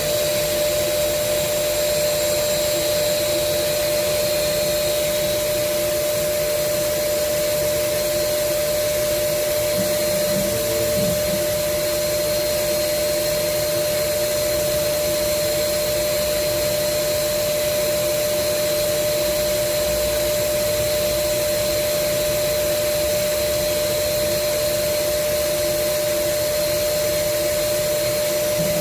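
Automatic CNC tool grinder running steadily: the grinding-wheel spindle motor gives a constant whine over an even rushing hiss, with no change in level.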